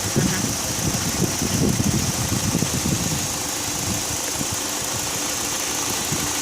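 A 2001 Hyundai Accent's four-cylinder engine idling, in a car brought in for misfiring. The low pulsing is uneven for the first three seconds or so, then settles into a steadier run.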